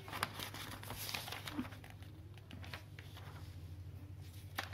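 Faint rustle and flick of paperback book pages being turned by hand, busiest in the first second or so, with a sharper tick near the end. A low steady hum sits underneath.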